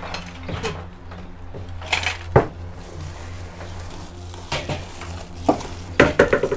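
Kitchenware being handled: scattered clatters and metallic clinks, the loudest knock about two and a half seconds in. Near the end a four-burner glass-top gas hob is set down on a table, giving a quick run of knocks with a short metallic ring. A steady low hum sits underneath.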